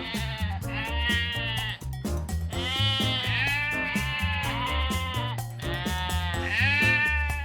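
Sheep bleating about five times, each bleat about a second long and wavering, over background music with a steady bass beat.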